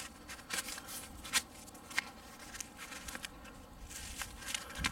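Nylon hatchet sheath being handled: soft fabric rustling with scattered small clicks and scrapes, the sharpest about a second and a half in.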